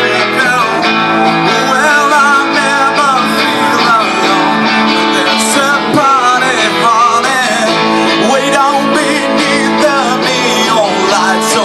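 Two acoustic guitars strumming a rock song live, with a man singing over them.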